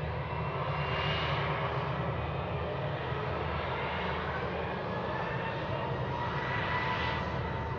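Airbus A320-232 jet engines (IAE V2500 turbofans) running at low power as the airliner taxis past. There is a steady low hum with a high fan whine whose pitch drifts slightly, and a rushing noise that swells about a second in and again near the end.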